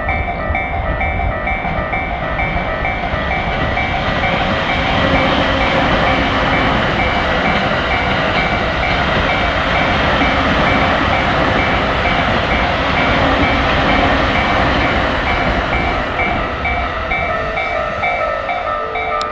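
Japanese railroad crossing warning bell ringing its repeating "kan-kan" tone, with a train running past; the train noise grows loudest in the middle and then eases off.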